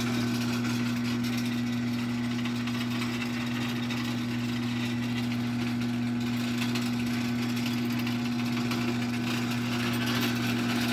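Liftmaster 1155LM half-horsepower chain-drive garage door opener running the door: a steady, quiet motor hum with the chain drive's mechanical whir over it, still on its original drive gear.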